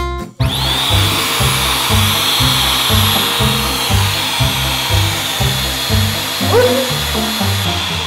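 Small electric air blower starting up about half a second in, then running steadily with a high whine as it inflates a giant latex balloon. Background music with a steady bass beat plays throughout.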